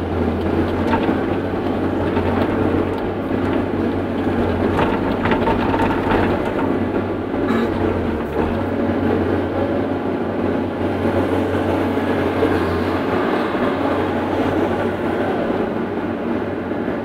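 CAT 318C excavator's diesel engine and hydraulics running steadily, heard from inside the cab, with a few clanks in the first half. The low engine hum eases off toward the end.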